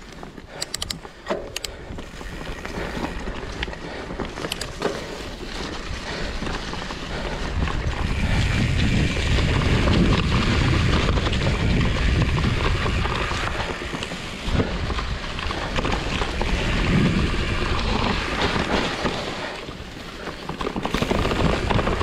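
Fat-tyre mountain bike rolling along a wet trail, with wind buffeting the microphone and the tyres and frame rumbling. A few clicks and rattles come in the first seconds, then the noise builds into a loud, steady rush from about a third of the way in, dipping briefly near the end.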